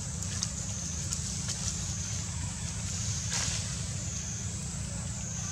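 Forest ambience: a steady high-pitched drone of insects that slowly swells and dips, over a constant low rumble. There is a brief rustle about three seconds in.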